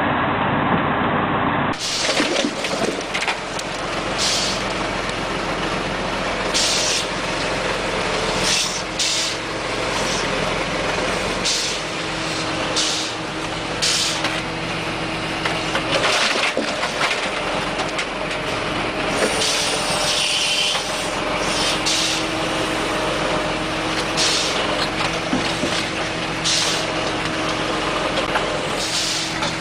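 Heavy machinery running steadily, with short bursts of hiss or cracking every second or few.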